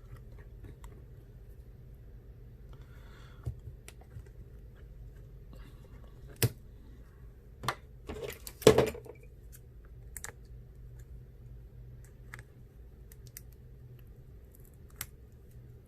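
Scattered small clicks and taps of repair tools and small metal parts of an iPhone being handled, with the loudest cluster about nine seconds in, over a low steady hum.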